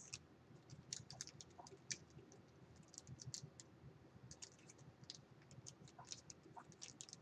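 Faint, irregular small clicks and taps of items being handled, such as product packaging.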